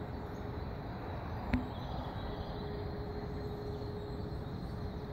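Distant air-raid siren holding the steady single tone of the all-clear signal, faint under outdoor background noise, with one sharp click about one and a half seconds in.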